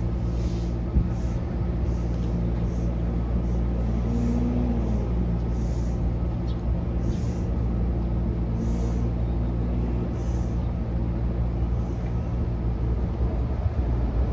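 Inside a JR Kyushu BEC819-series battery electric train under way: a steady low rumble and hum, with faint ticks recurring every second or so.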